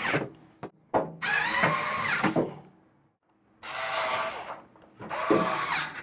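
Cordless electric screwdriver driving the screws of a microwave oven's sheet-metal cover, in three short runs of about a second each, its motor pitch bending as the screws tighten, with a couple of light clicks before the first run.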